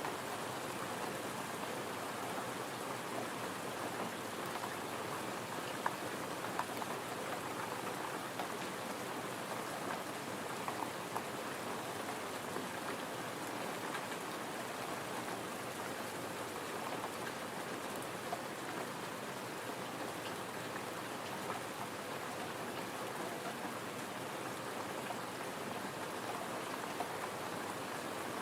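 Gentle rain falling steadily, an even patter with scattered louder drops.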